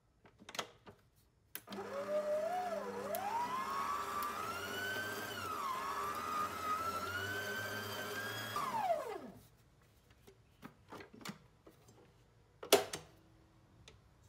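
Stand mixer motor running with a dough hook kneading bread dough: its whine rises in pitch as it starts, dips and wavers while the hook works the dough, and winds down after about seven seconds when switched off. A few clicks come before and after, with one sharp knock near the end.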